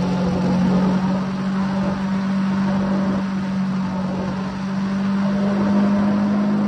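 Triumph Speed Triple 1050's inline three-cylinder engine running at a steady cruise at high motorway speed, its note holding level and rising slightly near the end, under a constant rush of wind and road noise.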